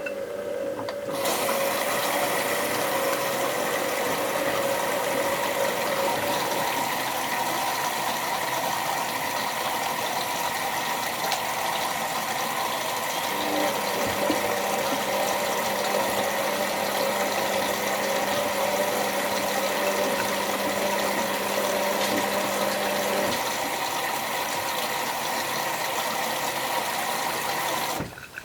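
Bauknecht WA 7778 W washing machine running mid-cycle: a steady rushing noise starts about a second in and cuts off abruptly near the end, with a low hum added through the middle stretch.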